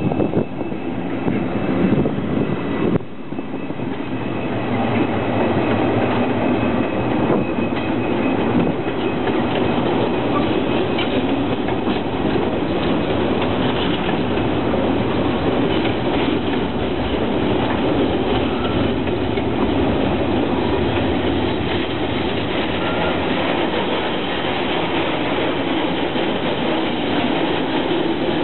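A diesel-hauled log train passes close by. For about three seconds the DFT-class locomotive is heard approaching with faint wheel squeal. Then a steady rumble and clatter of loaded log wagons rolling over the rails runs on without a break.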